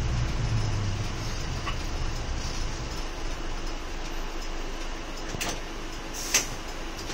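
City bus engine heard from inside the cabin, its low drone dying away over the first few seconds as the bus draws to a stop in traffic, then a steady idling cabin hum. A faint click comes about five and a half seconds in, and a sharper click about a second later.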